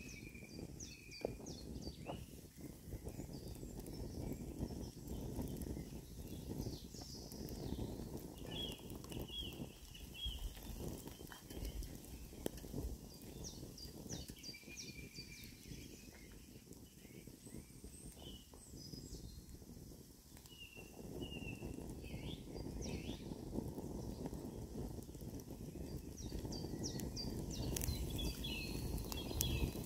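Woodland birds chirping and singing throughout, over a steady low noise of wind and a wood fire burning in a small twig stove, with occasional light crackles.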